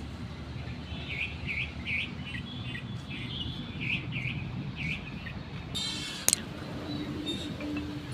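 Small birds chirping, a run of short repeated calls, over a steady low rumble. About six seconds in, a brief rasping noise ends in a sharp click.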